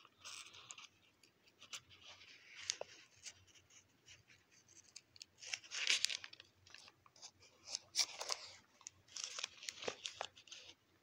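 Thin Bible pages being turned and leafed through by hand: a series of soft, irregular paper rustles and flicks, loudest about halfway through and again a couple of seconds later.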